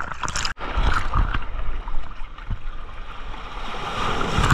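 Sea waves sloshing and swirling around a camera held at the water's surface, with a wave washing over it near the end.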